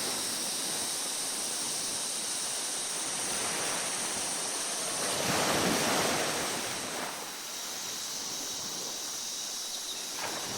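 Waves washing onto a beach over a steady hiss of surf, one wave swelling and breaking about five seconds in.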